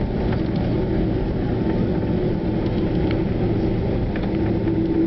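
Jet airliner cabin noise while the aircraft rolls along the ground: a steady low engine drone and rumble, with a steady hum tone that strengthens near the end and a few faint light rattles.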